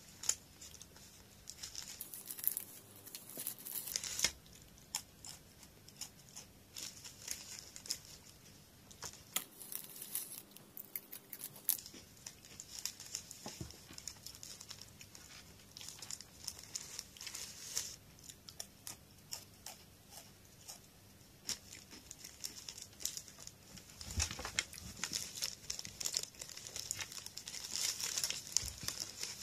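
Plastic snack wrappers crinkling and tearing as they are handled and opened, in short crackly spells with scattered clicks and a longer, denser stretch of crinkling near the end.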